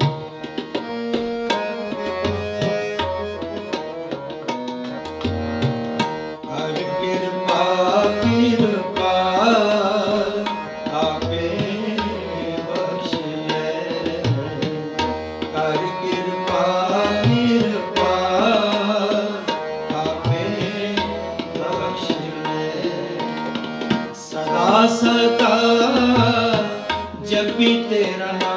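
Sikh shabad kirtan: harmoniums sustaining the melody over a steady tabla rhythm. From about eight seconds in, a voice sings long, drawn-out melodic phrases over the instruments.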